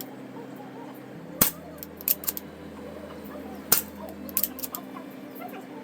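Artemis CP2 CO2 air pistol fired twice, a little over two seconds apart, each shot a sharp crack, with fainter clicks after each shot.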